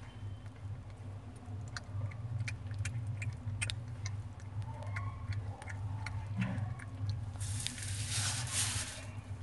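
Soft wet clicks and smacks of a mother cat licking her newborn kitten, over a steady low hum. A louder rustle lasts about a second and a half near the end.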